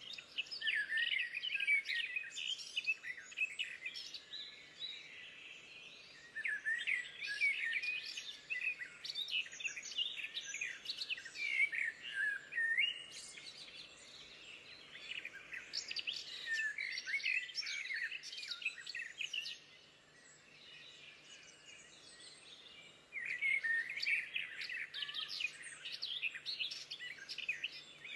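Songbirds singing in rapid, chirping phrases, in bouts of several seconds separated by short pauses.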